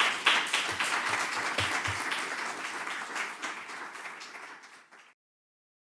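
Audience applauding: dense clapping that slowly fades, then cuts off suddenly about five seconds in.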